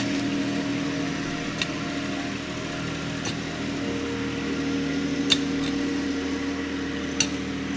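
An engine running steadily at a constant speed, with four sharp clicks or taps spaced about every two seconds.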